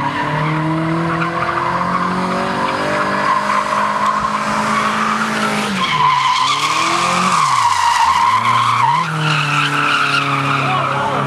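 Car drifting: tyres squealing steadily while the engine revs high. Between about six and nine seconds in, the engine note drops sharply and climbs back twice as the tyre squeal peaks.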